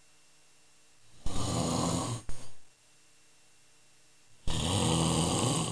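A man snoring in his sleep: two long snores about three seconds apart, the first ending with a short snort.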